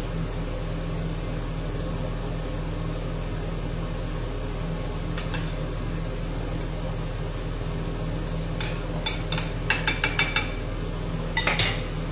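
A metal spoon clinking and scraping against a stainless-steel saucepan as artichoke cream is spooned out: one clink about five seconds in, then a quick run of clinks near the end, over a steady low hum.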